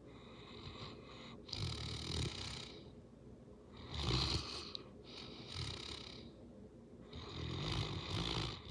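Sleeping Saint Bernard-type dog snoring, one slow rumbling breath about every two seconds.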